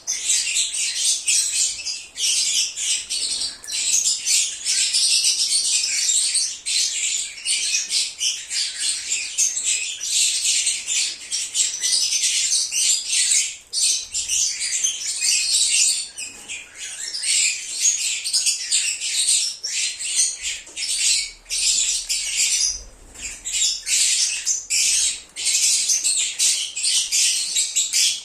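A flock of lovebirds (Agapornis) chattering and chirping: a dense, continuous mix of shrill squawks and high chirps from many birds at once.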